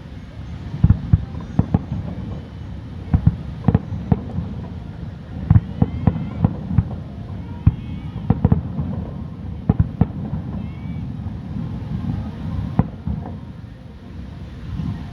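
Aerial fireworks shells bursting in quick, irregular booms, many per second at times, over a continuous low rumble of the display.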